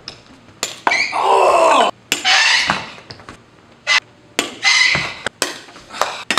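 A series of loud, sudden knocks and thuds with noisy rushes between them, from spinning hook kicks at a bottle set on cork blocks; the sound breaks off abruptly several times.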